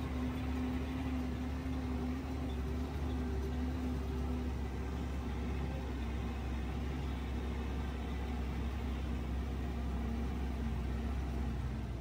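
Open-air safari truck's engine running steadily with a low, even drone.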